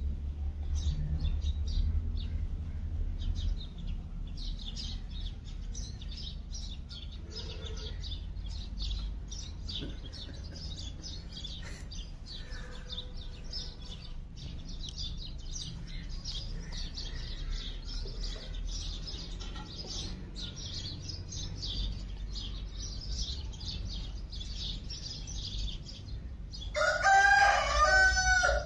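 Small birds chirping in quick, repeated short notes throughout, then a rooster crowing loudly for about two seconds near the end.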